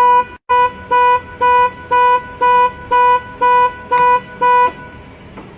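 Mazda 3's anti-theft alarm sounding, a loud, steady-pitched beep repeating about twice a second, then stopping.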